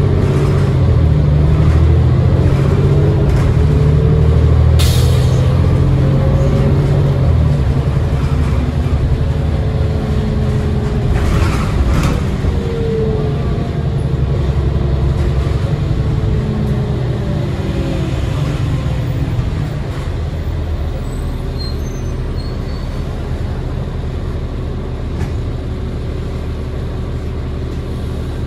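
Inside a New Flyer D40LF diesel transit bus under way: the Cummins ISL 8.9 L six-cylinder engine runs loudly for the first several seconds, with a driveline whine that rises and falls in pitch, then runs quieter for the last third. Short hisses of air from the bus's air brakes come about five seconds in and again around eleven to twelve seconds.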